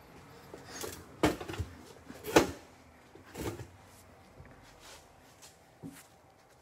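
A few sharp knocks and clunks: two loud ones about a second and two and a half seconds in, a softer one around three and a half seconds, and a small tap near the end.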